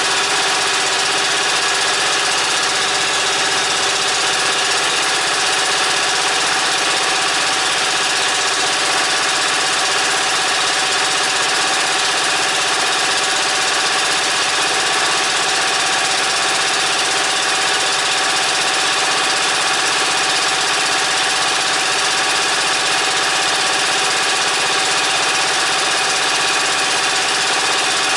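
Small air-cooled petrol engine running at a steady speed, driving the hydraulic pump of a homemade firewood processor.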